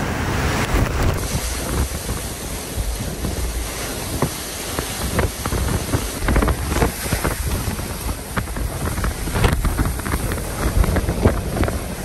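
Typhoon wind gusting with heavy rain, the gusts buffeting the microphone in uneven rushes.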